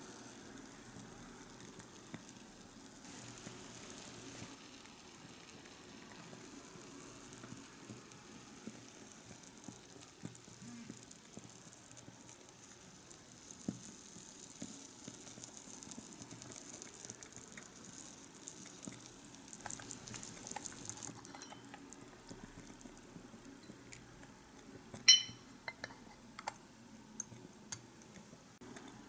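Miniature sukiyaki broth simmering in a tiny iron pot over a tea-light candle: a faint, steady sizzle, with wooden chopsticks ticking against the pot. Near the end the sizzle fades and a few sharp taps sound, one much louder than the rest.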